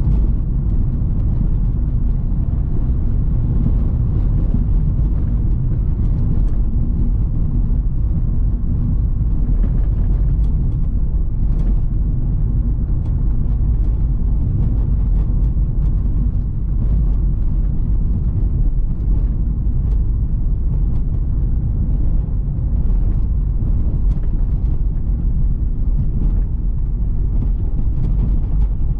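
Citroen C3 Picasso's 1.6 HDi four-cylinder turbodiesel and its tyres, heard from inside the car on a bumpy road: a steady low rumble with occasional light knocks over the bumps.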